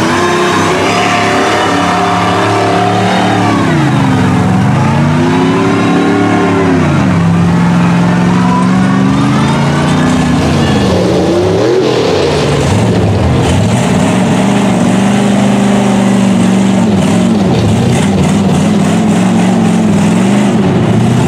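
Engine of a lifted mud truck on tall mud tires revving up and down repeatedly as it pushes through muddy water, its pitch dipping and climbing several times.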